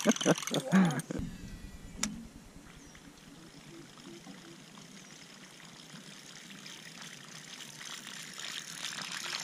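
A topwater lure being retrieved across a lake surface, a faint splashing, trickling sound that grows louder near the end, with a sharp click about two seconds in. It is preceded by about a second of rapid, evenly spaced vocal sounds.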